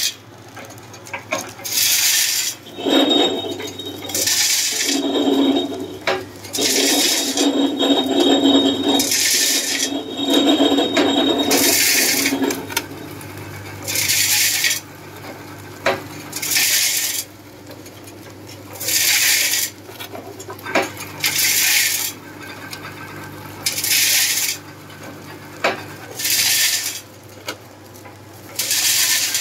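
Automatic namkeen pouch packing machine running over a steady low hum, with a short burst of rattling hiss about every two and a half seconds, one per packing cycle.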